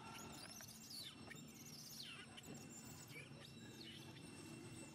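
Faint, high-pitched animal chirps and squeaks: many quick sweeping calls, several a second, over a faint steady high whine.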